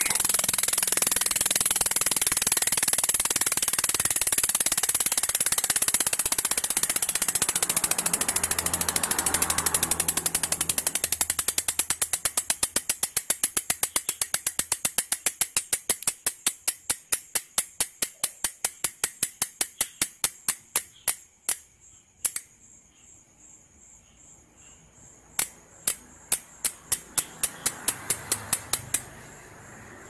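Novatec D742SB rear freehub ratcheting as the wheel coasts: its pawls make a fast, loud buzz that slows into separate clicks and stops about two-thirds of the way in. A short second run of clicks follows near the end, slowing again.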